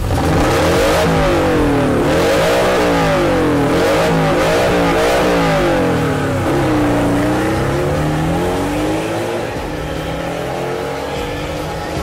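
Porsche 718 Cayman's turbocharged flat-four through a Fi valved catback exhaust with catless downpipe, blipped in a quick series of revs, then one longer rev and a steady rise in pitch as the car pulls away.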